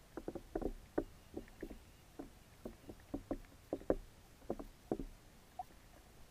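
An irregular series of short underwater knocks and clicks, about twenty over five seconds, picked up by a camera resting on the lake bed.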